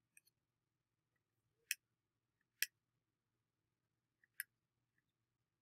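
Three sharp clicks of a computer pointer's button, spread over a few seconds, with a few fainter ticks, over near silence.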